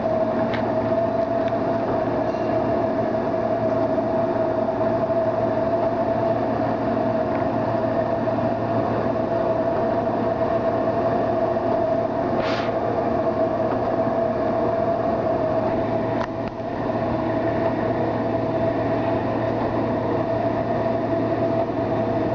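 1993 Nicco NSG-74S surface grinder running: a steady machine hum with a constant whine from its spindle and hydraulic unit. There is a brief hiss about halfway through.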